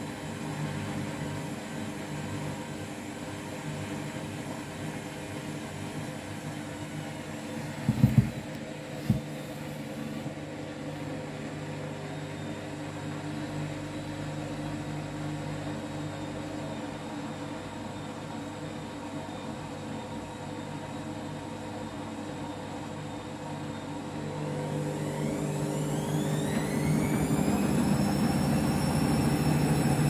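Front-loading washing machine running with a steady motor hum as the drum turns, with two sharp knocks about eight and nine seconds in. Near the end the motor whines upward and grows louder as the drum speeds up for a load-distribution run ahead of a spin.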